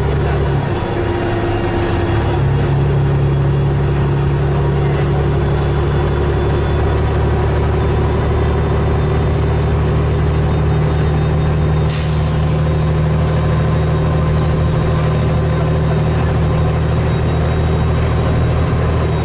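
Cummins L10 diesel engine of a Leyland Olympian double-decker bus running, heard from inside the passenger saloon. Its note dips briefly about a second in, then holds steady. There is a short hiss about twelve seconds in.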